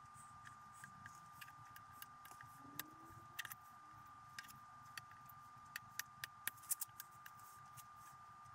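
Faint scattered clicks and light taps as steel plate pieces are set down and pressed onto a glued plywood board, a few sharper ones near the end, over a steady faint high-pitched whine.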